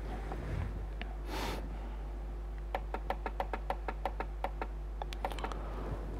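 A quick run of light clicks from a computer's keys or mouse while scrolling through code, about six a second for some two and a half seconds from around the middle, over a steady electrical hum. A short breathy rush of air comes about a second and a half in.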